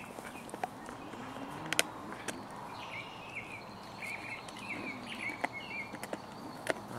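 Outdoor ambience with a bird calling in quick repeated chirps, mostly in the second half. Scattered sharp clicks and one louder crack about two seconds in come from a dog gnawing a bone.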